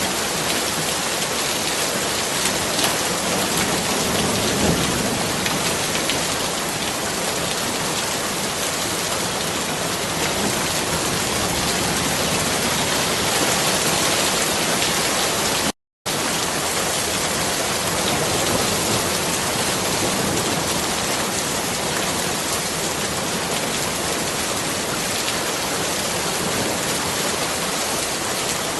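Steady rain falling, an even, dense hiss of water on surfaces. It cuts out to silence for a split second about halfway through.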